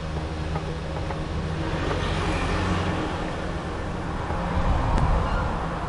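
Steady low rumble of vehicle or workshop background noise, with a light click about five seconds in.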